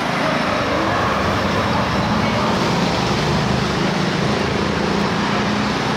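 Steady city street traffic noise with a low engine hum underneath.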